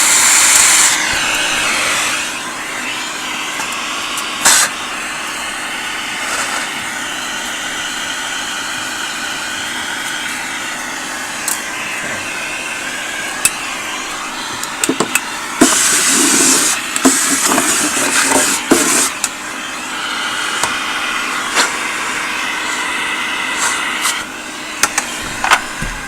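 Vacuum cleaner running steadily while sucking dust and dirt out of an old radio, with bursts of clicking and rattling in the middle. It cuts out near the end.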